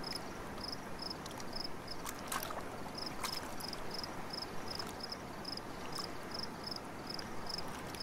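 Outdoor river ambience: a steady rush of flowing river water, with an insect chirping in short high pulses about twice a second and a few faint clicks.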